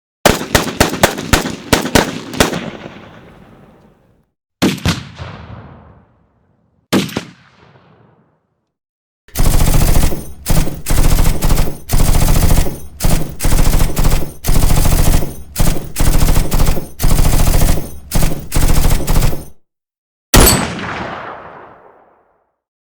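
A string of rifle gunshot sound effects. First comes a quick volley of about a dozen shots. Then two single shots ring out with echoing tails, followed by about ten seconds of automatic fire in short bursts, and near the end one last loud shot with a long echoing decay.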